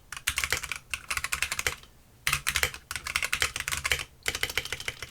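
Fast typing on a computer keyboard: quick runs of keystroke clicks, broken by brief pauses about a second in, near two seconds and near four seconds.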